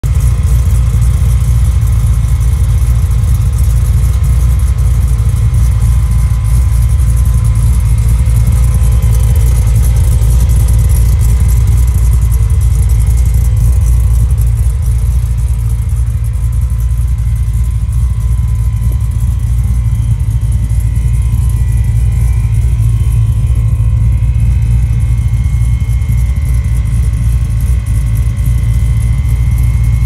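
Supercharged engine of a 1970s Chevrolet donk idling with the car parked: a steady, loud low rumble with faint steady tones above it.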